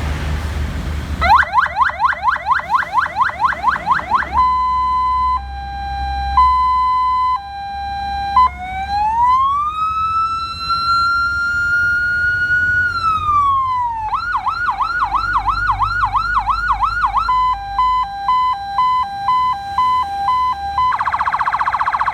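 An electronic vehicle siren cycles through its tones. First comes a fast rising yelp about four times a second, then a slow two-tone hi-lo. Next is a long wail that rises, holds and falls, then the yelp again, a quicker hi-lo, and near the end a very rapid warble.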